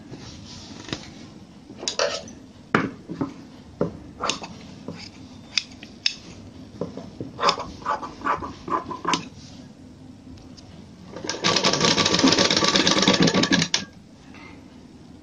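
Scissors snipping through cloth in a string of separate cuts, then a sewing machine running for about two seconds near the end as cut fabric strips are stitched together.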